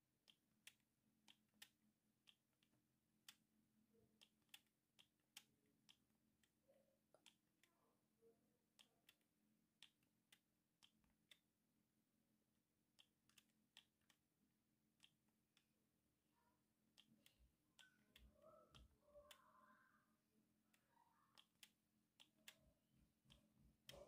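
Faint clicking of a Siemens A55 mobile phone's plastic keypad buttons pressed over and over at irregular intervals, roughly one to two clicks a second, over a faint low hum.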